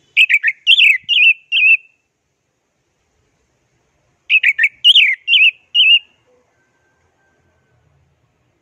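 Orange-headed thrush (anis merah) singing two short warbled phrases of about five quick whistled notes each, the second starting about four seconds after the first.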